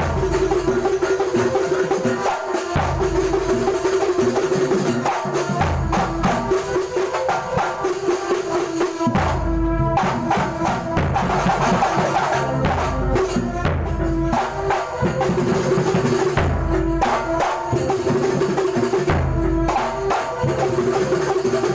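Kuntulan percussion ensemble playing a fast, dense rhythm: frame drums and deep bass-drum strokes with jingling tambourine-like percussion over a held mid-pitched tone.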